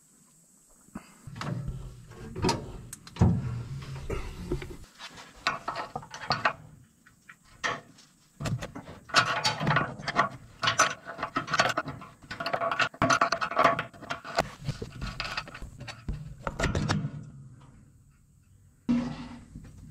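Irregular metallic clinks, taps and scrapes of a wrench working the fuel pickup line fitting under a dozer's fuel tank, with some clinks ringing briefly. The sounds stop for a short spell near the end.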